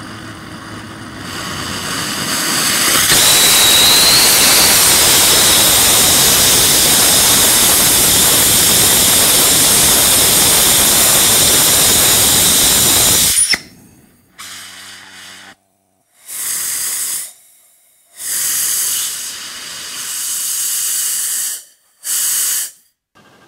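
Homemade ethanol and gaseous-oxygen rocket engine on a test stand giving a loud, steady hiss that builds over the first few seconds, holds for about ten seconds and cuts off abruptly. Five short bursts of hissing gas follow, spraying unburned fuel from the engine.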